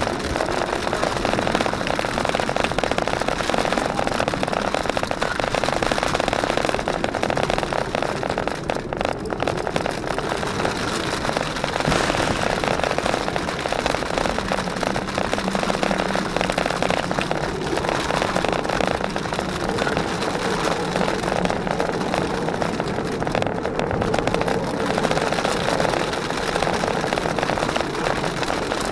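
Cabin noise of a Jeep Wrangler JKU driving a rough trail: steady engine and road noise with a dense crackle and rattle, and a low engine drone that stands out more from about halfway.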